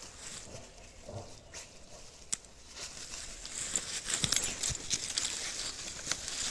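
Cocker spaniel truffle dog nosing and digging in leaf litter and ivy, with rustling and scratching and a sharp click about two seconds in; the rustling grows busier in the second half.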